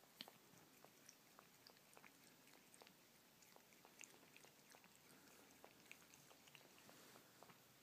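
Cat lapping and licking at a glass saucer: faint, irregular wet tongue clicks, a few a second.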